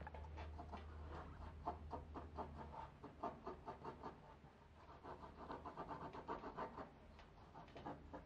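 Graphite pencil sketching on drawing paper: quick, repeated scratchy strokes, with a short lull about halfway through.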